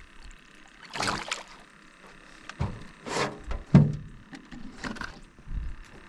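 A small acoupa caught on a jig splashing at the water's surface beside the boat as it is landed, a series of short splashes and knocks spread over a few seconds.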